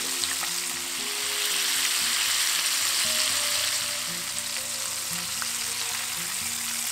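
Cornstarch-coated shrimp deep-frying in hot oil, sizzling steadily, a little louder a couple of seconds in.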